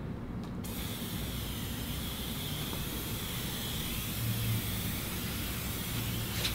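Hand-held sprayer hissing steadily as gold concrete colour is sprayed onto a concrete floor through a vinyl stencil; the hiss starts about half a second in.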